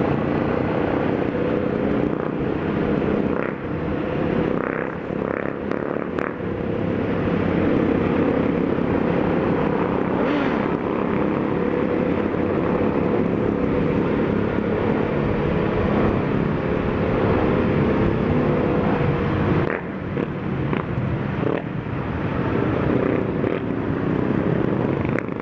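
Yamaha XJ6 motorcycle's inline-four engine running at low city speed, heard from the saddle over wind rush, its note rising and easing with the throttle, with brief dips a few seconds in and again near the end.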